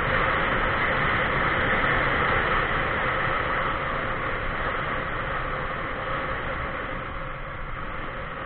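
Steady rushing wind and road noise from travelling along an asphalt highway, with a faint steady hum underneath; it slowly grows quieter toward the end.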